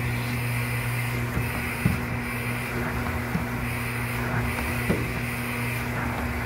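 Box feeder, vacuum transport and label applicator running together: a steady hum under even machine noise, broken by three sharp knocks about a second and a half apart as the feed-and-label cycle repeats.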